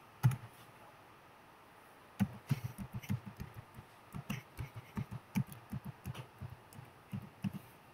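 Computer keyboard keys being pressed in an irregular run of short clicks starting about two seconds in: a password being typed and then retyped at a Linux console prompt.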